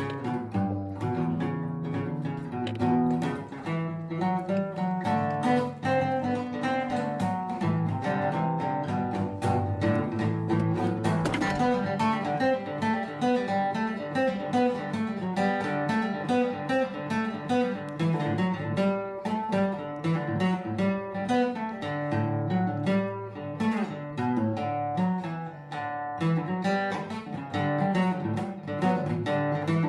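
Acoustic guitar playing, a steady stream of picked notes and chords.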